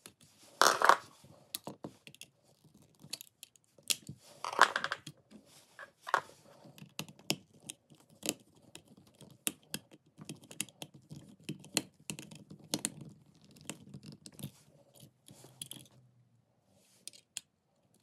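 Small clicks, scrapes and rustles of hand tools working a wall outlet's brass terminal screw: a wire stripper shaping the black wire, then a screwdriver tightening the screw down on it. The loudest sounds are two short rustling scrapes, about half a second in and again about four and a half seconds in.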